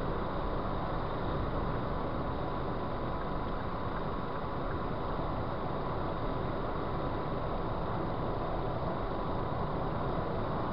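Steady road and tyre noise of a car driving at motorway speed, heard from inside the car, with a thin, steady high tone running through it.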